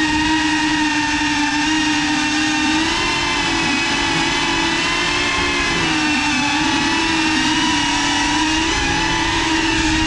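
Motors and propellers of a GEPRC Cinelog 35 FPV cinewhoop drone on 6S, a steady buzzing whine whose pitch wavers up and down as the throttle changes.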